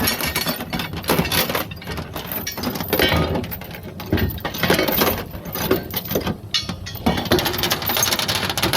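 Irregular clinking and clattering of hard objects knocking together, with many sharp clicks close upon one another, fading out near the end.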